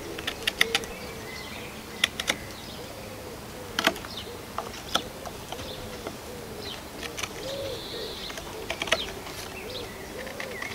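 A knife carving and scraping a notch into a small wooden hearth board on a chopping block, giving sharp clicks in short clusters a few times. Birds chirp in the background, with a pigeon cooing low.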